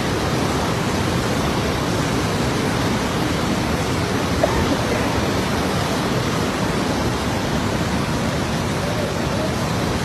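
Steady, loud rush of a swollen, muddy mountain river in flash flood, its torrent churning without letup.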